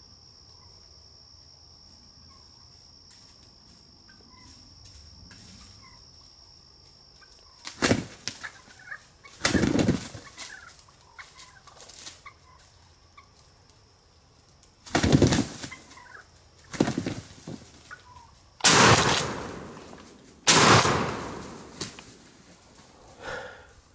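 Osceola wild turkeys gobbling, and several shotgun shots fired by two hunters in the second half, the loudest sounds, each cutting in sharply and dying away over about a second. An insect's steady high trill runs through the first several seconds.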